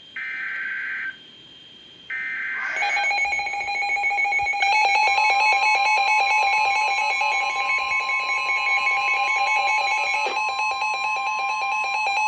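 Emergency Alert System activation: two one-second bursts of buzzing SAME digital header data, then a loud steady attention tone from about three seconds in, with a second tone joining a couple of seconds later. The tones signal the start of a severe thunderstorm warning.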